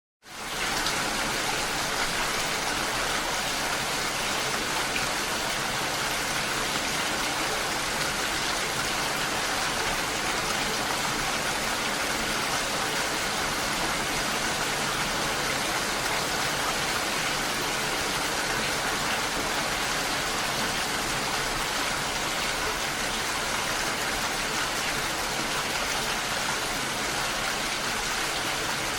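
Steady rain falling, an even hiss that cuts back in abruptly after a brief drop-out at the very start.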